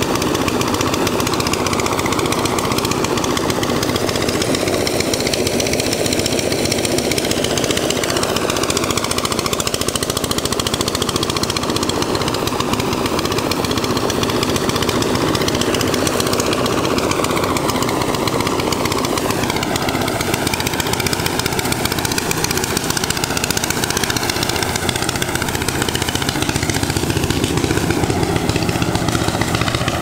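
Engine-driven rice thresher with a water-cooled engine running continuously as bundles of rice stalks are fed into its drum. The pitch wavers up and down as the machine takes the load.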